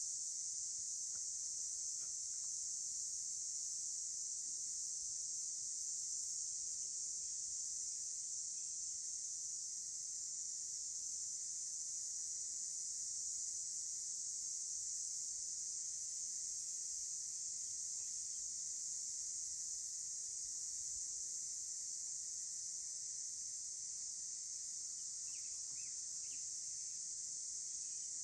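A steady, high-pitched chorus of insects that keeps going without a break. A few faint chirps come in near the end.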